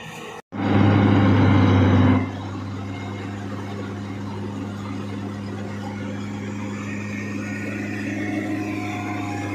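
Combine harvester running with a steady low engine hum. After a brief dropout about half a second in, it is loud for about a second and a half, then drops to a lower, even level.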